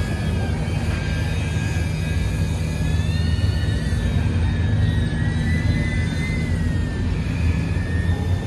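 DJI Avata FPV drone's propellers whining in flight, the pitch rising a little about three seconds in and dropping back near six and a half seconds, over a steady low rumble.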